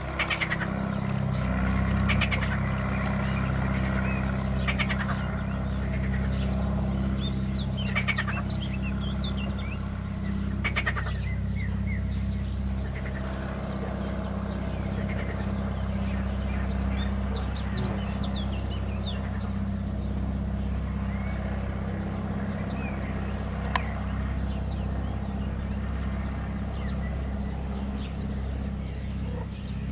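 Frogs croaking in short pulsed trills every few seconds, mostly in the first half, with small birds chirping, over a steady low hum.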